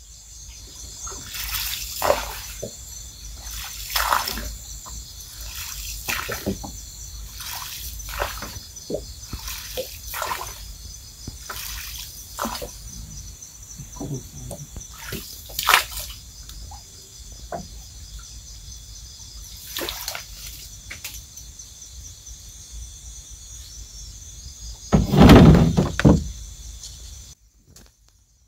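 Water sloshing and splashing in irregular strokes, with one louder, longer splash about 25 seconds in.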